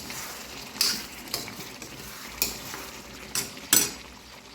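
Chicken pieces frying and sizzling in a pan while a spoon stirs them, with about five sharp scrapes or knocks of the spoon against the pan.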